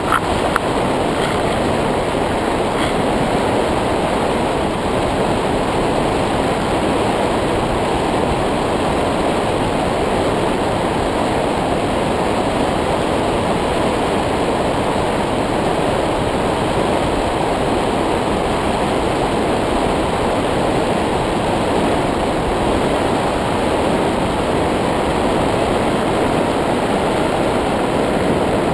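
Steady wind rushing over the microphone of a camera riding on a model paraglider in flight, an even noise with no motor tone. A higher motor whine fades out right at the start, leaving the paraglider gliding with its motor off.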